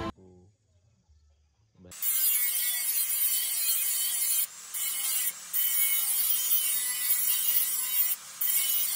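Angle grinder with a sanding disc grinding a steel knife blade. After a near-quiet start, a steady, loud grinding hiss begins about two seconds in, with a few brief dips.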